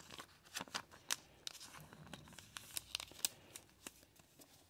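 Thin clear plastic card sleeve crinkling as a trading card is slid into it: a quiet run of small rustles and clicks.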